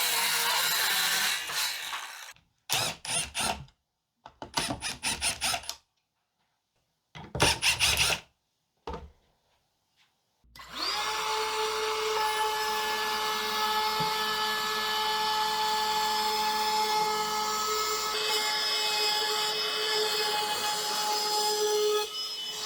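Power tools working wood: several short bursts of motor and cutting noise, then about ten seconds in a motor spins up and runs steadily with a pitched whine for about eleven seconds.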